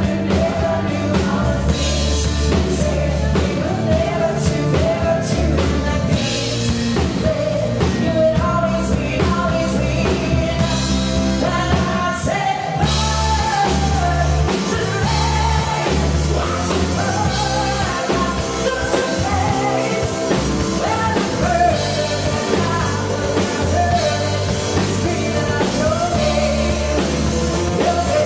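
Live rock band: a woman singing a slow melody over drums and bass guitar. The sound grows brighter and fuller about thirteen seconds in.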